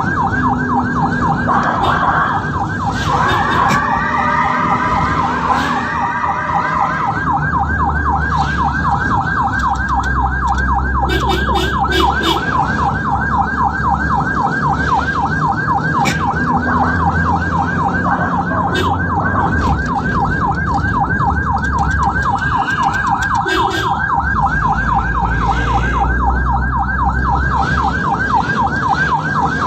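Ambulance siren sounding a fast, even yelp that rises and falls many times a second, over low engine and road rumble. A few seconds in, other gliding tones briefly join it.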